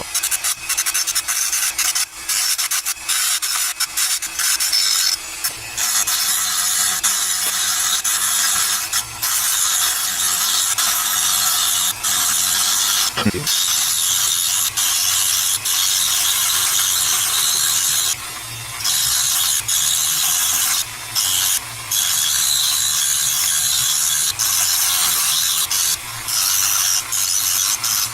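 Dremel rotary tool at its lowest speed with a cut-off wheel grinding corrosion and pitting off a soldering iron tip: a steady, harsh abrasive grinding that breaks off for short moments several times as the wheel comes off the tip.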